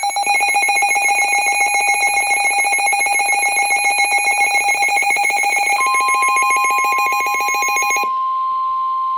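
Rapidly pulsing electronic alert tone. About six seconds in, a steady single-pitch tone near 1 kHz joins it, the NOAA Weather Radio warning alarm tone for a severe thunderstorm warning, and it carries on alone once the pulsing stops about two seconds later.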